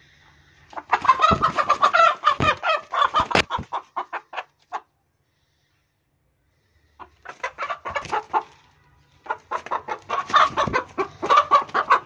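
Chicken clucking in quick runs of short calls, in three stretches, with the sound dropping out completely for about two seconds after the first.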